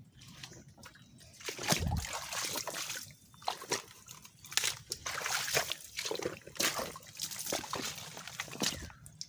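Footsteps wading through shallow water and mud: an irregular series of splashing steps, with a heavier low thud about two seconds in.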